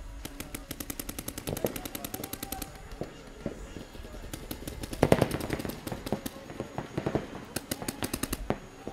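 Paintball markers firing in rapid strings of about ten shots a second. A louder cluster of shots comes about five seconds in and another fast string near the end.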